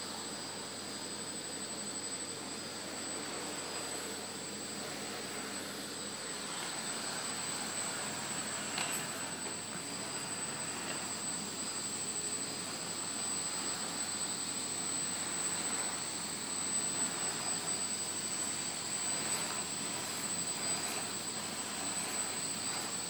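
Small hobby servo whirring in short spurts as it tilts the hexacopter's tail motor mount for yaw control, over a steady hiss with thin high-pitched tones.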